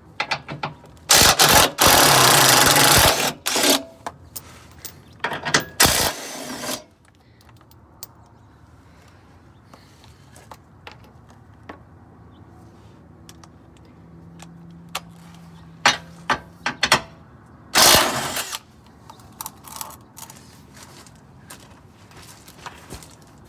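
Cordless impact wrench hammering out skid plate bolts in several bursts. A long burst starts about a second in and lasts some two seconds, shorter ones come around four and six seconds in, and a last brief one near eighteen seconds.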